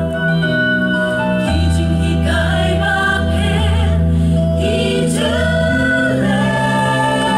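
Mixed church choir of women and men singing a hymn in harmony through microphones, moving through long held chords that change about every second, with vibrato on some notes.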